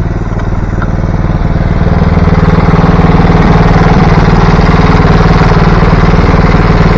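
Mini excavator's engine running steadily, growing louder and fuller about two to three seconds in as it is throttled up or put to work.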